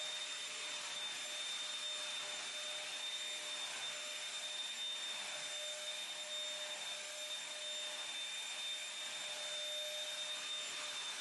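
Corded Bissell stick vacuum running steadily over carpet: an even rush of air with a constant high motor whine.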